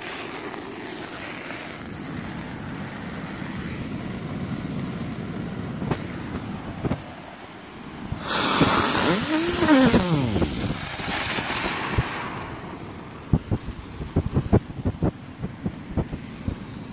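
Small consumer fireworks burning: a spark fountain hisses steadily, grows louder for a few seconds about halfway through, and then gives way to a run of sharp crackling pops.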